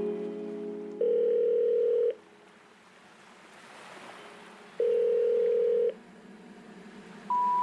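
Telephone call tones: two steady one-second ringing tones about four seconds apart, with a faint whoosh between them, then near the end three short rising beeps of the special information tone that comes before a recorded operator message. Marimba-like music fades out in the first second.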